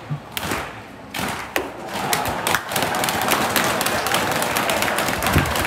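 Spectators at a baseball game clapping: scattered claps at first, swelling into steady applause about two seconds in, with a few dull thumps.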